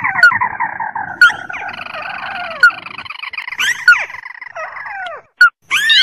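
Crakes calling, played as a lure recording: a dense, overlapping chatter of short downward-sliding notes from more than one bird, breaking off about five seconds in into a few separate loud calls.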